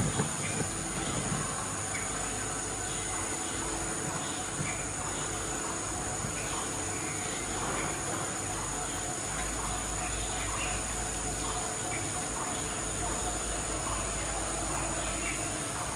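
Steady, high-pitched outdoor insect chorus, with faint short chirps scattered through it and a low rumble for a few seconds midway.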